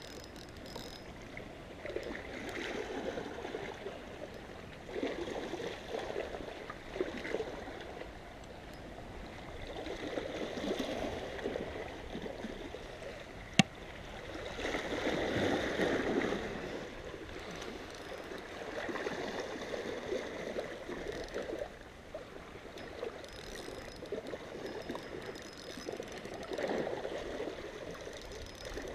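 Small sea waves lapping and sloshing against shoreline rocks, swelling and easing every few seconds. One sharp click about halfway through.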